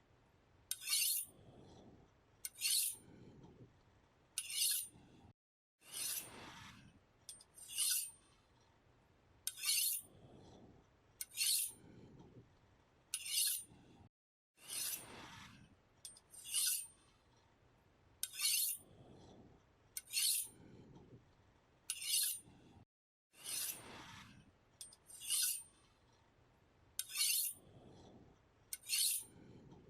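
A knife blade being sharpened in repeated scraping strokes, about one stroke every one and a half to two seconds. Each stroke is a short, bright metallic rasp, and every few strokes there is a longer sweeping one. The same run of strokes repeats with a brief dead gap roughly every nine seconds.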